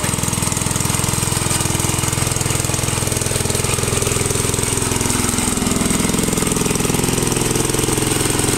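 Honda G35 single-cylinder four-stroke engine on a Honda F400 tiller running steadily with a rapid, even firing beat, freshly repaired with a donor engine block.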